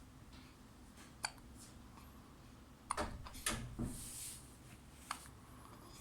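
Baby hiccuping: short, sharp hiccups about a second in and again near the end, with a brief cluster of knocks and rustling around the middle.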